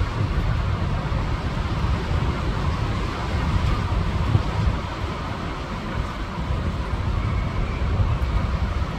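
Strong storm wind gusting and buffeting the microphone: a heavy, unsteady low rumble over a steady rushing hiss.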